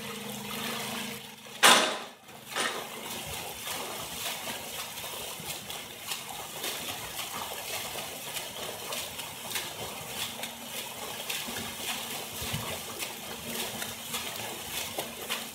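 Steady rush of water in a swimming flume's current, broken by the irregular splashing of a swimmer's freestyle arm strokes. There is one loud splash-like burst just under two seconds in.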